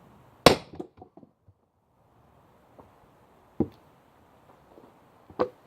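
Sledgehammer striking a steel wood-grenade splitting wedge set in a Holm oak log: three sharp blows, the first and loudest about half a second in with a few small knocks after it, then two more at roughly two-second gaps.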